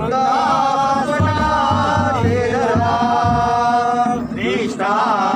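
A group of voices singing a Hindu devotional aarti together, in long held notes.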